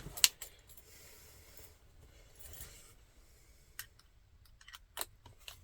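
Screws being started by hand on a blower motor assembly: faint scraping and handling noise with a few sharp metallic clicks, one just after the start and several more in the last second and a half.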